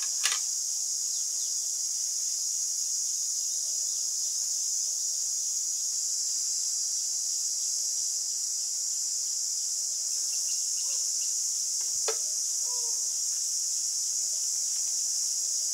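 Steady high-pitched drone of insects, crickets or cicadas, with a couple of faint clicks near the start and about twelve seconds in.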